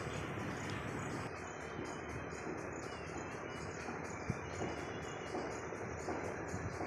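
Insects chirping in a fast, even pulse over a steady outdoor hiss.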